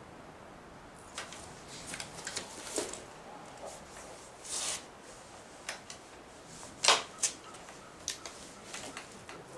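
Handling and loading of a Henry single-shot .357 Magnum rifle: a scatter of short clicks, rubs and light knocks, with the sharpest click about seven seconds in.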